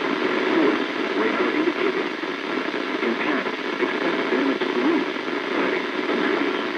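Weather-band radio picking up a weak NOAA Weather Radio broadcast: steady static hiss, with a voice faintly audible underneath it.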